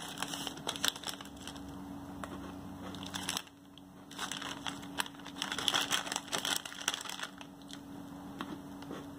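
Foil-lined plastic snack bag crinkling and crackling as it is handled and folded closed, with a brief lull about three and a half seconds in and the loudest crackles a couple of seconds later.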